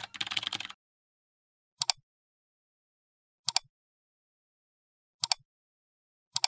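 A short burst of computer keyboard typing, then four single mouse clicks about a second and a half to two seconds apart, each a quick double tick of press and release.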